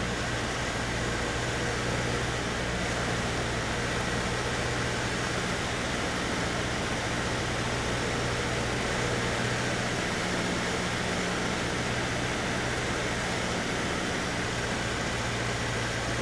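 Cessna 152's four-cylinder Lycoming O-235 engine and propeller running steadily on final approach, heard from inside the cabin as a constant low drone under a wide hiss of airflow.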